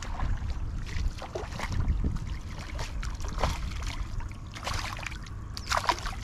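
A hooked fish splashing and thrashing at the water's surface as it is drawn in close to the bank, in irregular bursts with the sharpest splashes near the end, over a low wind rumble on the microphone.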